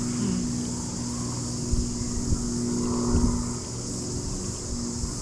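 Steady engine hum with an even low drone, under a constant high-pitched insect buzz, with a few soft low knocks in the middle.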